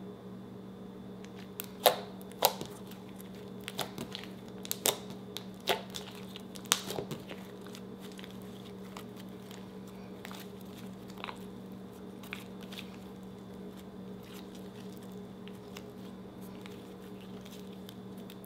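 Heat-sensitive slime being stretched and folded by hand, giving a run of sharp pops and clicks for the first several seconds, then a few fainter ones until about twelve seconds in. A steady low hum runs underneath.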